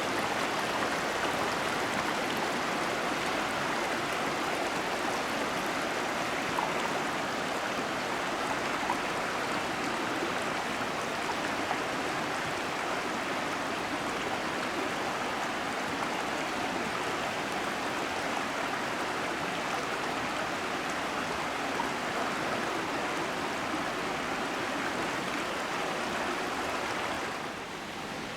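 Mountain river flowing: a steady rush of water that drops in level near the end.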